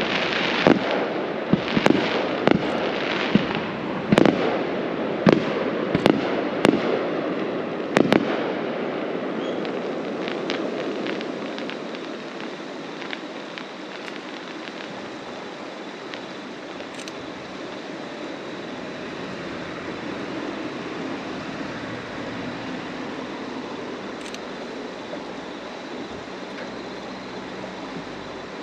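Fireworks shells bursting, about a dozen sharp bangs in quick succession over the first eight seconds, followed by a few fainter crackles. The bursts die away into steady background noise.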